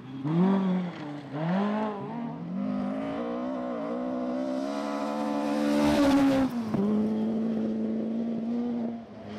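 Rally car engine revving hard on a stage. It blips up and down twice, then climbs in pitch for several seconds as the car accelerates, is loudest just before its pitch drops sharply about six seconds in, and then holds a steady note.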